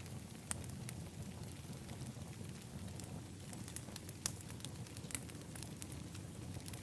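Wood fire in an outdoor fire pit crackling, with irregular sharp pops, a few louder ones, over a steady low rumble of burning.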